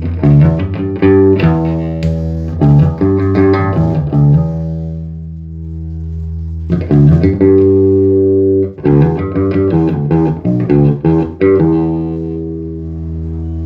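A five-string Warwick Corvette SS electric bass, fitted with a custom-built two-band EQ preamp, played through a 1x12 Eminence speaker. Runs of plucked notes alternate with single notes left to ring and die away.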